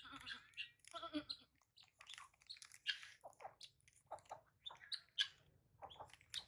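Faint short animal calls, mixed with small clicks and crinkles from chewing and from a plastic snack wrapper being opened.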